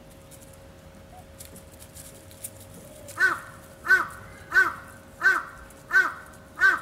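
A crow cawing six times in a steady series, about one and a half caws a second, starting about three seconds in.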